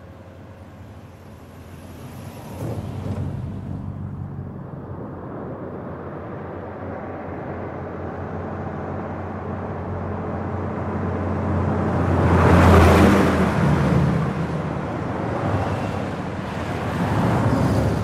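Fast road traffic on a trunk road, vehicles passing one after another in a steady roar of engine and tyre noise. It builds a couple of seconds in, and the loudest pass comes about two-thirds of the way through, followed by several more.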